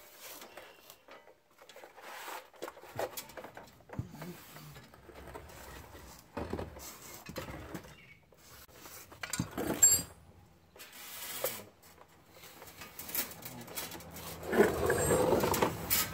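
Scattered clicks, scrapes and rustling of hand work under a car while a brake line is being routed, with a louder stretch of scraping near the end.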